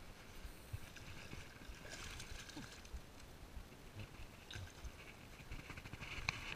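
Faint splashing at the water's edge as a hooked bass is pulled out by hand, in short bursts.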